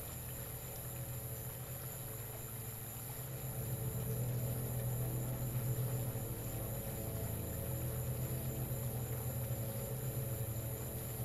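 A steady low droning hum with a fast flutter in it, swelling a little about four seconds in, with a thin high whine held above it.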